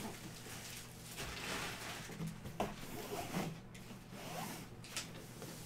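Cardboard box and its plastic wrap being handled and opened: rubbing and scraping, heaviest in the first half, with a few light knocks.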